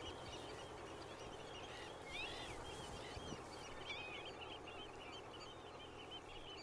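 Many small birds calling in the background: a steady chatter of short, overlapping chirps, with one stronger rising call about two seconds in, over a faint outdoor hiss.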